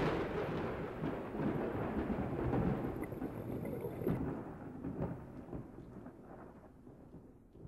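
Thunderclap breaking suddenly and rumbling on with crackles, fading away over about seven seconds.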